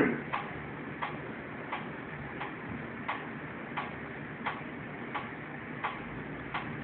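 Steady, even mechanical ticking, about three ticks every two seconds, over a faint low background.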